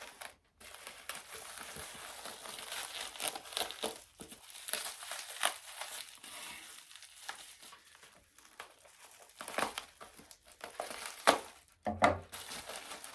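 Packaging being unwrapped by hand: continuous crinkling and rustling with some tearing, and a few sharper, louder crackles near the end.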